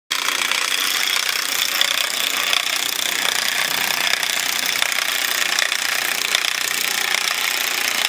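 Cordless power drill running steadily as it drives into the wooden frame of a nest platform.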